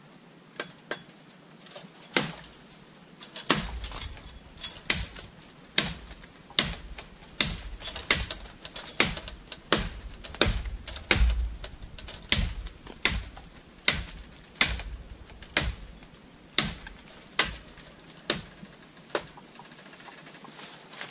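A bamboo stem being chopped at its base: a steady run of sharp chops, about three every two seconds, starting about two seconds in and dying away near the end.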